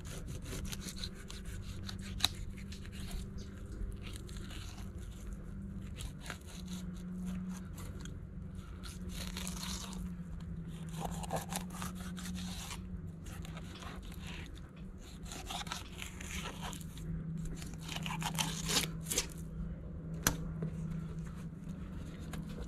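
Fillet knife cutting a flounder fillet off the rib bones: repeated rasping, crunching scrapes as the blade runs over the bones, with a few sharp clicks, over a steady low hum.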